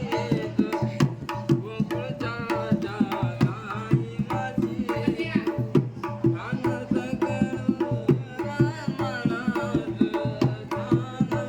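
Hand-played dholki drum keeping a steady rhythm under a man's devotional singing.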